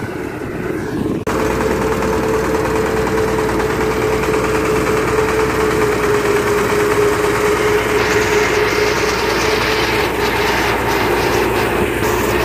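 A rice thresher running, its small single-cylinder diesel engine driving the threshing drum with a steady whine. Bundles of rice stalks are being fed into the drum. From about two-thirds of the way through, a rougher rushing hiss comes in on top.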